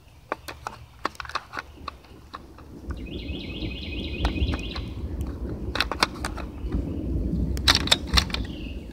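Metallic clicks and rattles of an SDS Lynx 12 magazine-fed 12-gauge shotgun being handled and loaded, with a cluster of louder clicks near the end. A bird trills briefly in the middle, over a low rumble.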